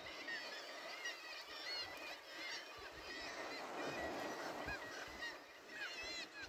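Many birds calling at once, a constant chatter of short, high, overlapping calls. Underneath is a wash of sea noise that swells about four seconds in.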